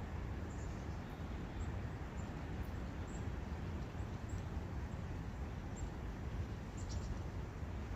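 Steady rushing of a forest brook, with faint, brief bird chirps scattered over it.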